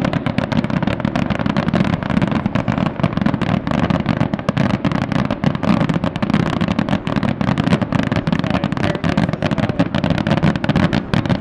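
Fireworks going off in a rapid, continuous barrage: many overlapping bangs and crackles a second with no pause between them.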